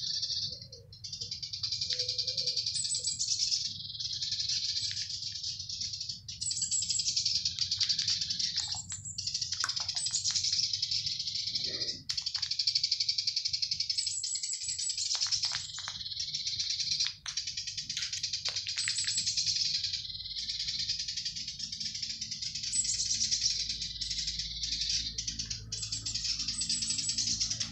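Many small birds chirping and twittering in a dense, high-pitched chorus, with short breaks now and then.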